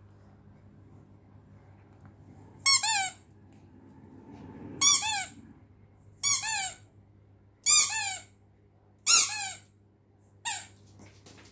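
Squeaky dog toy squeezed six times, one squeak about every second and a half, each a short high squeak that drops in pitch.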